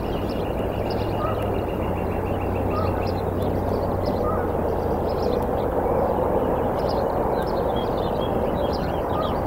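Outdoor ambience on an eagle-nest microphone: many short, high wild-bird calls over a steady rumble of background noise that swells in the middle. A fast run of repeated high notes stops about three seconds in.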